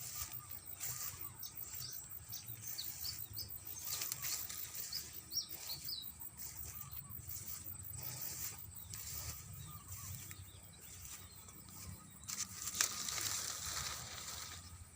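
Outdoor rural ambience: a steady high insect hiss, with a handful of short bird chirps a few seconds in, and irregular soft knocks and rustles from footsteps while walking.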